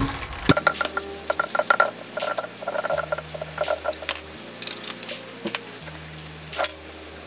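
Metal clinks and rattles of a spanner and ratchet working on the power steering pump bolts of an engine, over background music whose low bass notes change about every second and a half, starting about half a second in.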